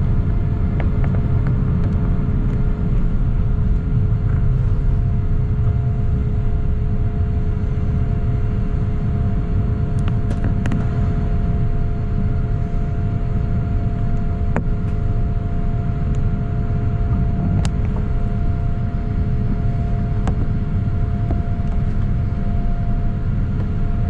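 Boeing 787-9 cabin noise during the climb after takeoff: a steady, loud low rumble of jet engines and airflow heard from inside the cabin. A steady hum runs over the rumble, with a few faint ticks scattered through it.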